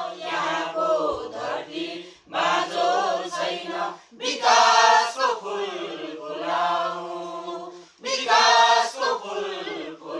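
A mixed group of men and women singing a song together as a choir. They sing in phrases with long held notes and pause briefly between phrases about two, four and eight seconds in.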